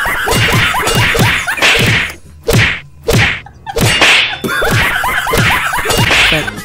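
Comic fight sound effects: a rapid string of whooshes and whip-like whacks, several a second, with a few longer hissing swishes in the middle and near the end.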